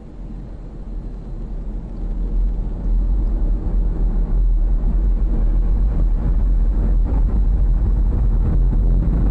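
Falcon 9 first stage's nine Merlin 1D engines during ascent: a deep rumble with crackling, growing louder about two to three seconds in and then holding steady.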